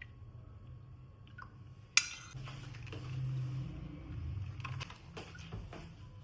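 Kitchen dishes and utensils being handled: one sharp, ringing clink about two seconds in, then scraping and handling noise and a few light knocks.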